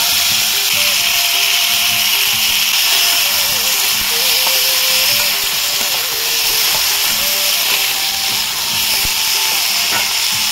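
Chopped tomatoes sizzling loudly in hot oil in a metal kadai just after being tipped in, while they are stirred with a metal spatula.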